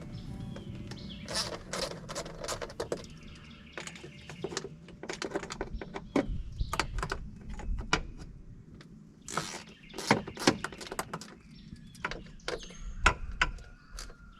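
Scattered clicks and knocks of hand tools and parts being handled during a fuel pump removal, coming in irregular clusters, with birds chirping faintly in the background.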